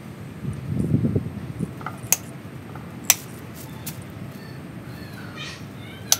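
Bonsai pruning shears clicking shut in a few separate snips, with some rustling of leaves and handling about a second in. A cat meows in a drawn-out, wavering call near the end.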